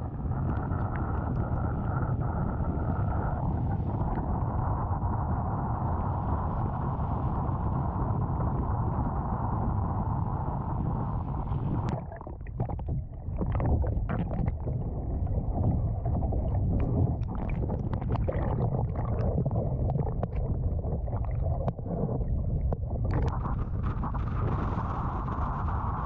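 Wind buffeting the microphone over choppy sea water washing against a kayak, a steady rushing noise. About halfway through it turns muffled, with scattered clicks and gurgles, as heard from a camera under the water. The fuller wind-and-water rush comes back near the end.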